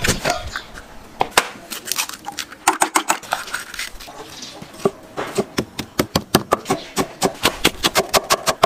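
Cleaver chopping green peppers and scallions on a cutting board. Scattered knocks at first, then from about halfway a steady run of rapid strikes, about four or five a second.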